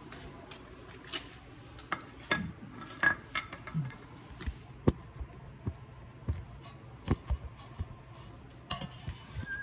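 Metal hand tools clinking and knocking: irregular sharp clinks of wrenches being handled, one louder than the rest about five seconds in, over a steady low hum.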